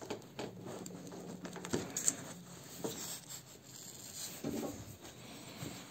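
Faint scraping and rubbing with a few light clicks as a screw is put into the homemade cardboard panel and started by hand.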